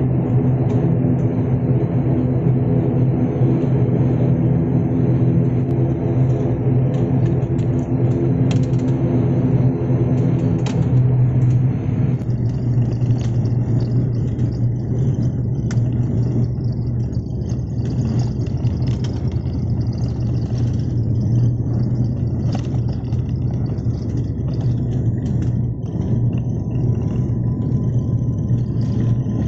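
Airliner cabin during the takeoff run, heard from a window seat over the wing: the jet engines hum steadily at first, then about twelve seconds in give way to a louder, rougher rumble with cabin rattles as the plane speeds down the runway.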